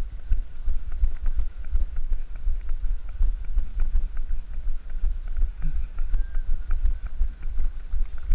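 A runner's steady footfalls on an asphalt road, each stride jolting the body-worn camera, with low wind rumble on the microphone.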